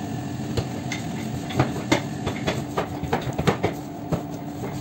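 Steady machine hum of a bakery under an irregular run of sharp taps and slaps. The taps come from about a second and a half in, as hands press, pat and lift a sheet of bread dough on a floured steel counter.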